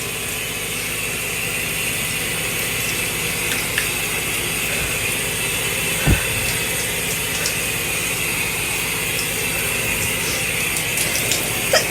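Shower water running steadily, a constant spray noise. A few faint ticks and one short dull thud about six seconds in.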